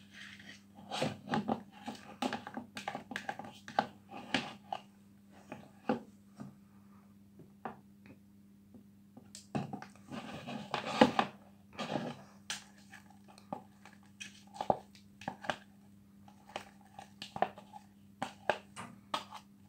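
Silicone spatula stirring and scraping a foamy slime mixture of glue and shaving foam round a bowl, in uneven strokes with short pauses, as the boric-acid activator just added is worked in.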